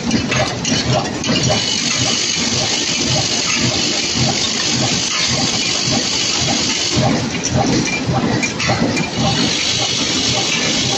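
Steel lag screws clattering and rattling as they tumble in a rotating perforated steel drum and spill into a pile of screws, over the steady running of the screw-making machine.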